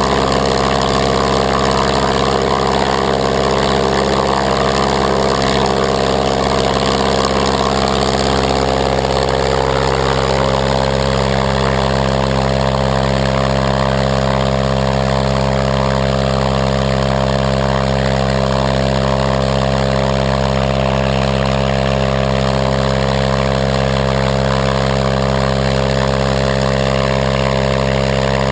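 Walter Minor 4-III inverted four-cylinder air-cooled aircraft engine running steadily with its propeller turning, its tone shifting slightly about ten seconds in.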